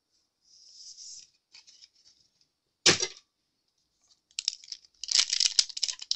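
A single sharp knock about three seconds in, then, from about four seconds in, the foil wrapper of a Pokémon TCG Crown Zenith booster pack being handled and torn open, with busy crinkling and tearing.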